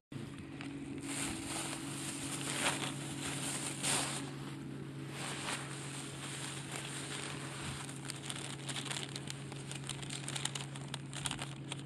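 Rustling and crackling handling noise on a handheld camera's microphone, with gusts of wind, over a steady low hum.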